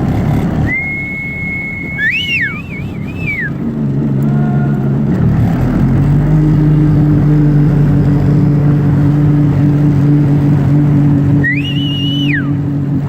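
A vehicle engine running at a steady speed, its hum becoming stronger and steadier about halfway through. Two high whistle-like tones sound over it: one near the start, a held note that breaks into a warble, and a shorter rising-and-falling one near the end.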